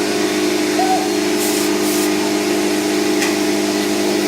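A motor running steadily, with a constant hum and a hiss of rushing air.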